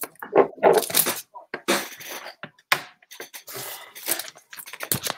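Irregular rustling, scraping and clicks of handling noise close to a microphone, in a run of short bursts.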